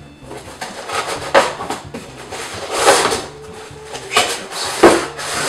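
Cardboard shipping box being handled and its flaps pulled open: a few short bursts of cardboard scraping and rubbing, the loudest near the end.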